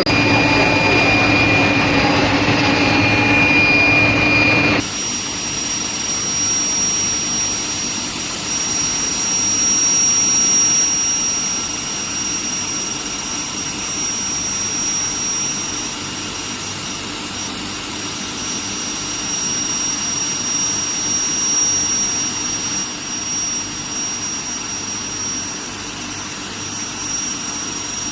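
Steady industrial running noise of steel plate induction hardening equipment: a continuous whooshing hum with thin, steady high-pitched whines. The sound changes abruptly about five seconds in, and the high whine then holds steady.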